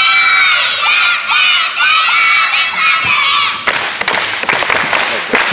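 Crowd of children's high voices shouting and cheering, many at once. A little past halfway, a rapid patter of sharp claps joins the cheering.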